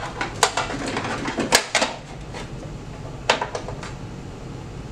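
Sharp clicks and light knocks of a cellular modem and its cables being handled and tucked into a coffee vending machine's open electronics compartment, the loudest about a second and a half in and another near three seconds.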